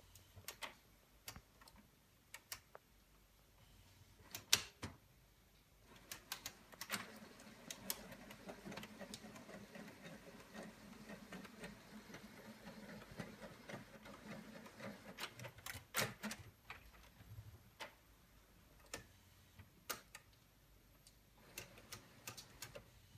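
Home printer working: its print mechanism runs with a steady whir for about ten seconds in the middle, with scattered sharp clicks and taps throughout.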